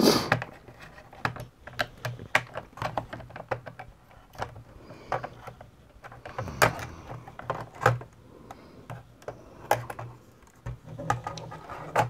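Scattered small clicks and light knocks of hands working inside an opened Dell Inspiron 2200 laptop, as its connectors are unplugged and the copper heat-pipe heatsink is lifted off the CPU.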